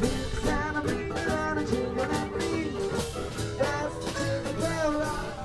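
Live band music: acoustic guitars strummed in a steady rhythm under singing voices.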